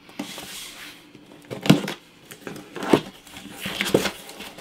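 Paper and cardboard mail packaging rustling as a book is unpacked and handled, with three sharp knocks.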